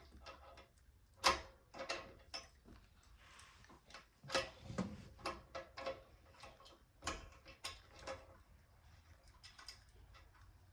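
A wrench working on a bicycle's bolts: irregular metallic clicks and clinks, several a second at times. The loudest comes about a second in, with a brief rustle a little later.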